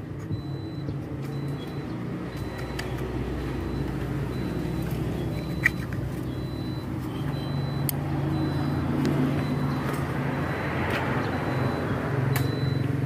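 A vehicle engine runs steadily and grows slowly louder, with a few sharp clicks and knocks from handling along the way.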